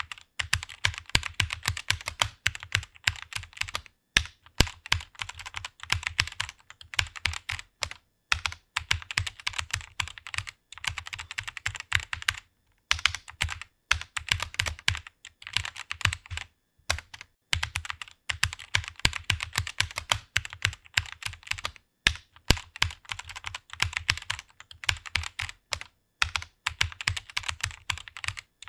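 Fast typing on a computer keyboard: a dense run of key clicks, broken by short pauses every second or two.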